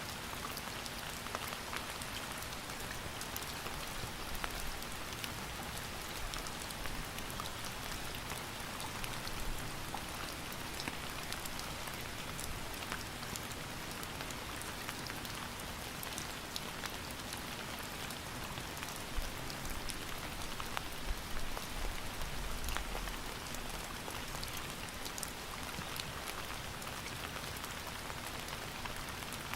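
Steady rain falling, with a constant hiss and many individual drops ticking on a surface. A few slightly louder low swells come about two-thirds of the way through.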